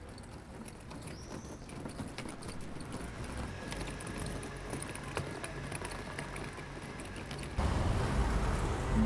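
Street ambience with faint traffic rumble and footsteps on cobbles, plus a brief high squeak about a second and a half in. Near the end it suddenly turns louder as a car passes close.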